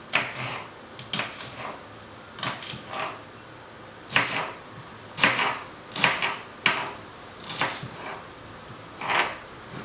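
Kitchen knife slicing through young onion and striking a cutting board: a series of irregular cuts, one or two a second.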